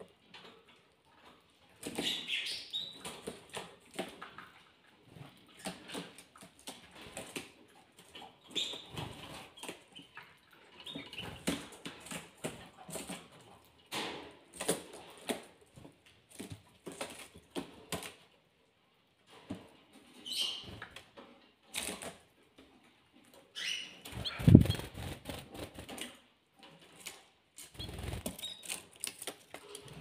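Domestic canaries flapping their wings and hopping on a hard surface at close range, giving an irregular patter of small taps and flurries of wingbeats. One louder, lower flurry comes about three-quarters of the way through.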